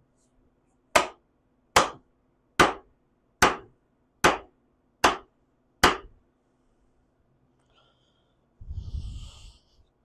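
Homemade wooden mallet striking the top of an upright wooden stick: seven sharp wood-on-wood knocks, evenly spaced a little under a second apart. A short rough noise follows about three seconds later.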